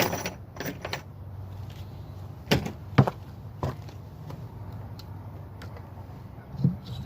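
Scattered knocks and clunks of things being handled and set down, a few at a time with gaps between, over a steady low hum.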